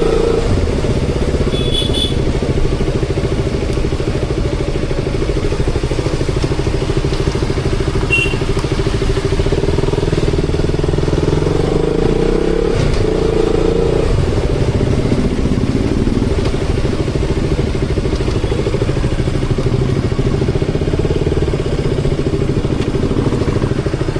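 KTM Duke 200's single-cylinder engine running steadily under way, recorded raw on the moving bike. The revs shift briefly about halfway through.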